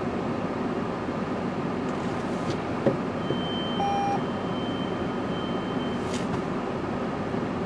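Steady noise of an automatic car wash running, heard from inside the car's cabin, with a sharp click about three seconds in and a short electronic beep about a second later.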